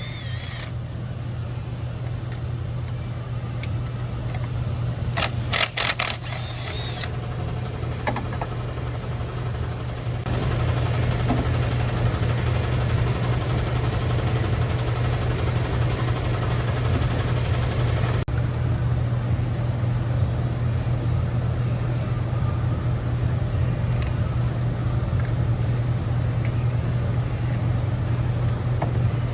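Car engine running steadily, with a short run of sharp clicks about five to seven seconds in.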